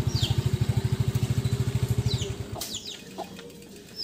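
Motorcycle engine idling with a fast, even low pulse, then shutting off about two and a half seconds in. Small birds chirp throughout with short falling calls.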